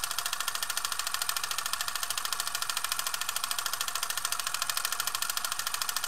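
A steady, rapid mechanical clatter of even clicks, about a dozen a second.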